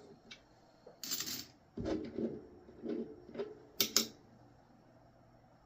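Small handling noises of coins being picked over: a brief rustle about a second in, then a run of light clicks and taps, the sharpest around four seconds in.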